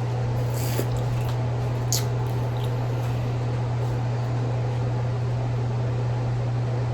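A steady low hum, with a few faint clicks and smacks from eating boiled crawfish in the first two seconds.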